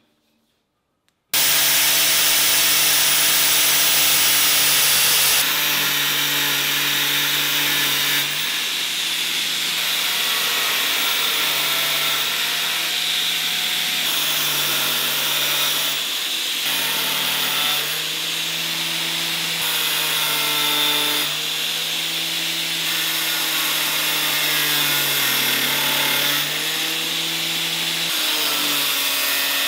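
Angle grinder in a cut-off stand cutting steel with an abrasive disc: it starts suddenly about a second in and runs steadily, its pitch sagging now and then as the disc bites into the metal.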